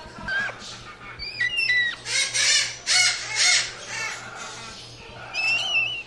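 A parakeet calling: a run of harsh chattering calls mixed with short whistles, loudest a couple of seconds in, a lull around four seconds, then another whistled call near the end.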